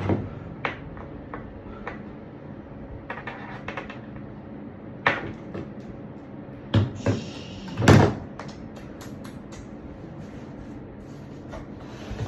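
A mechanical keyboard's box and packaging being handled: scattered knocks and clicks, with a few louder thumps about five, seven and eight seconds in, and a run of quick light clicks after the last one.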